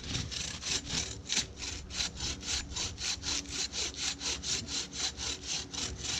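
Bow saw cutting through a standing tree trunk by hand, in quick back-and-forth strokes at about three a second, each stroke a rasping hiss.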